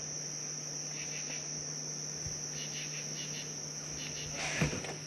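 A chorus of crickets chirring in one steady high-pitched drone, with a low steady hum underneath. About four and a half seconds in there is a single louder sudden noise.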